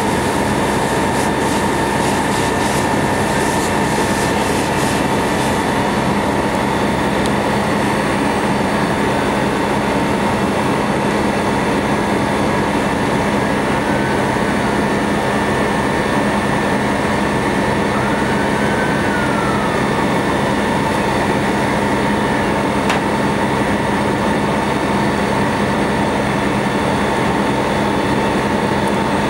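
Fire engine's engine and pump running steadily to supply a hose line: a loud, unbroken mechanical drone with constant whining tones.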